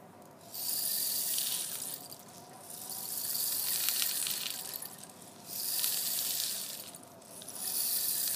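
Homemade rain stick, a cardboard tissue-paper roll pierced with toothpicks, tipped end over end so that its small grains trickle down over the toothpicks in a rain-like hiss. It runs in four pours, each swelling and fading over a second or two as the tube is turned over again.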